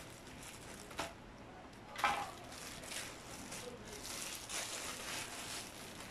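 Plastic courier bag rustling and crinkling as it is handled and opened, with a sharp click about a second in and a louder crackle about two seconds in, then repeated rustling.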